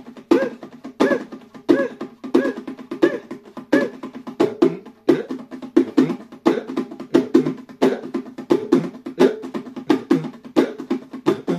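A pair of bongos played by hand in a steady rhythm. Strong strokes come about every two-thirds of a second, with lighter taps between them.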